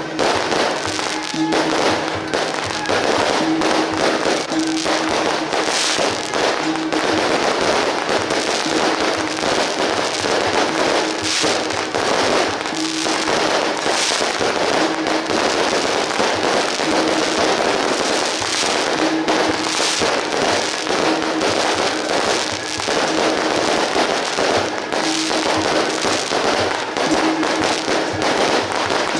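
Strings of firecrackers going off in a continuous, dense crackle of rapid bangs.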